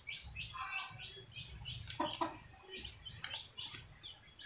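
Small birds chirping in quick, short, repeated high notes. Two brief knocks about two seconds in.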